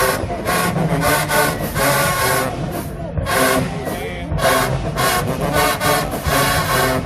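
HBCU marching band playing loud brass chords over repeated drum hits.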